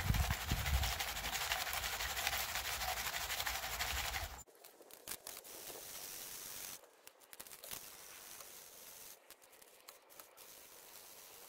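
Green plastic gold pan shaken and swirled in a tub of water: water sloshing, with gravel and paydirt rattling in the pan as it is washed. It is louder for the first four seconds, drops off suddenly, then continues quieter with scattered clicks.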